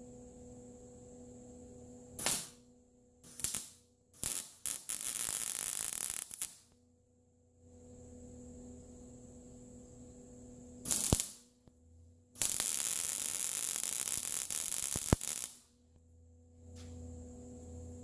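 Wire-feed welder arc sizzling and crackling in bursts as it welds a broken steel mower axle bracket: a few short bursts, plus two longer runs of about two and three seconds. A steady low hum fills the gaps between welds.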